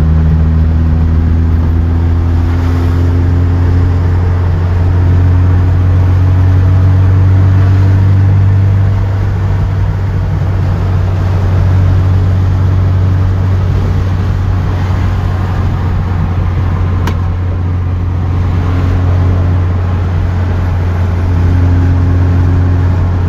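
Ferrari V8 engine running under way, its pitch rising and easing a little as the car changes speed, over steady road noise. A single sharp click sounds about two-thirds of the way through.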